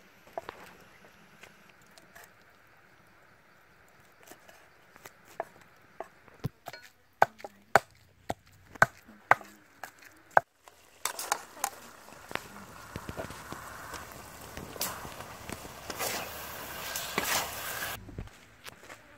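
Cleaver chopping snail meat on a wooden chopping board: separate sharp strikes, coming thick and loud in a quick run just before the halfway point. After an abrupt cut, a metal spatula stirs food in a steel wok with a steady sizzling hiss and a few scrapes, which stops suddenly shortly before the end.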